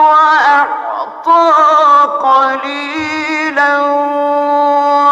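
A man chanting the Quran unaccompanied in the melodic mujawwad style. He draws out long sung notes with wavering ornaments, with short breaks between phrases about a second and two seconds in.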